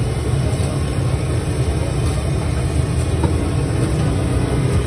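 A steady low mechanical rumble like a running engine, with a few faint clicks.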